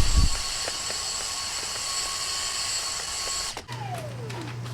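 Power drill running steadily as it drills a new hole through a drawer slide rail, with a heavier thump at the start as the bit bites. About three and a half seconds in the trigger is released and the whine falls away as the motor spins down, leaving a low hum.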